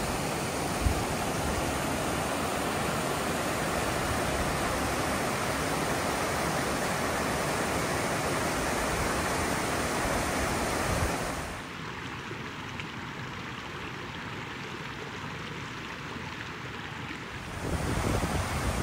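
Steady rush of mountain stream water. About two-thirds of the way through it changes to a quieter, softer rush, and near the end low gusts of wind buffet the microphone.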